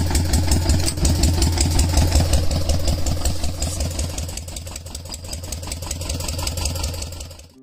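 Tractor engine running with a steady, fast chugging pulse and a strong low hum. It cuts off suddenly at the end.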